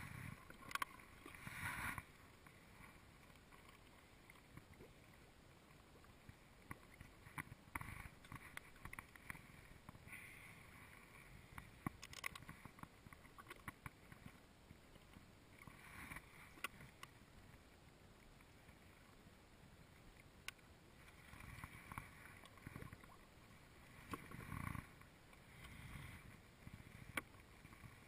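Near silence from a kayak on calm water: faint water lapping at the plastic hull, with scattered light clicks and knocks of fishing tackle being handled, busiest in the first couple of seconds.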